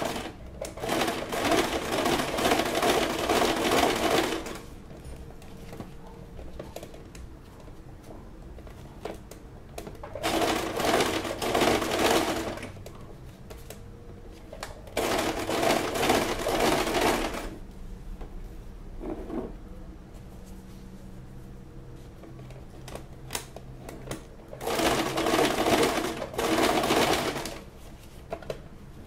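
Electric household sewing machine sewing a straight stitch in four runs of a few seconds each, with pauses between and one very short run near the middle. It is stitching bias binding around the inside of a padded bra cup.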